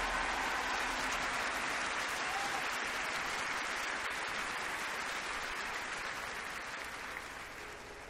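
Large stadium crowd applauding, slowly dying away.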